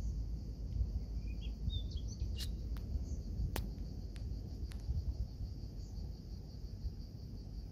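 Open-field ambience: a steady, high, pulsing buzz of crickets over a low wind rumble on the microphone, with a few brief bird chirps in the first half. Several sharp clicks fall here and there.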